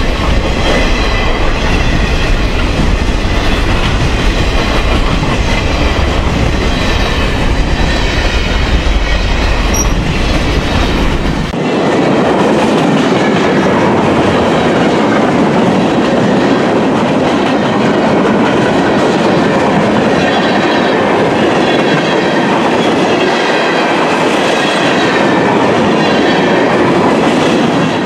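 Cars of a long freight train rolling past close by: a steady rumble of steel wheels on the rails, with a faint high wheel squeal in the first half. About halfway through, the sound changes abruptly and loses its deep low rumble.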